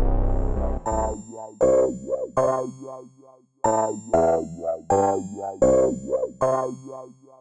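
Alchemy synthesizer patches from Logic Pro's Modular Melodies sound pack playing. A heavy bass sound cuts off about a second in, giving way to a sequenced synth pattern of short notes, about two a second, each with a rising and falling filter sweep.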